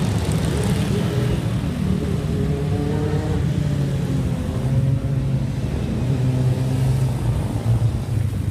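Engines of parade motorcycles and a quad bike running and revving as they ride past, a steady engine drone with the pitch rising and falling.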